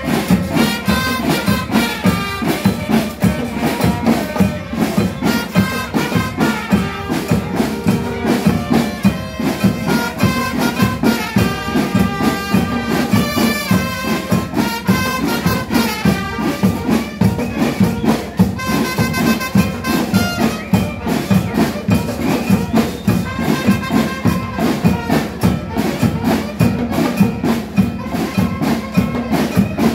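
A school band playing: a brass melody over steady, driving drumming.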